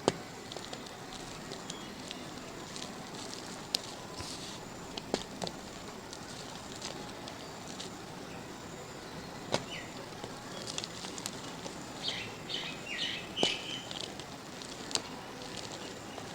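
Dried mud crust cracking and crumbling under pressure: scattered sharp snaps a few seconds apart, the loudest right at the start, with a run of brittle crackles in the last third.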